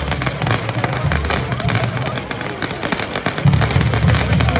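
Fireworks crackling: many small sharp bangs and cracks in quick, irregular succession, with a heavy low rumble under them.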